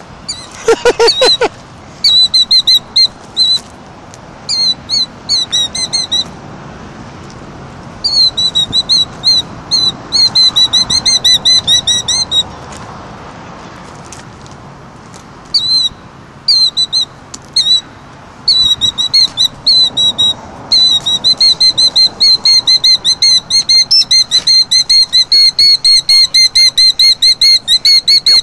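Killdeer giving shrill alarm calls, first in bursts of quick notes with pauses between, then in an unbroken fast run of notes over the last third: the agitated calling of a parent bird defending its nest of eggs.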